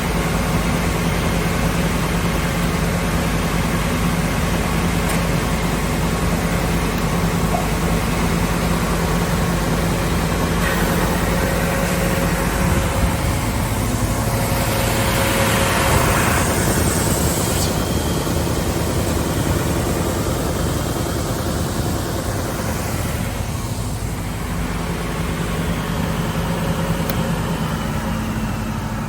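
SCM Sandya 3S wide-belt sander, with its 18.5 kW sanding-unit motor, running with a steady machine hum. Roughly midway a harsher hiss swells for a few seconds and then fades, as a workpiece is sanded.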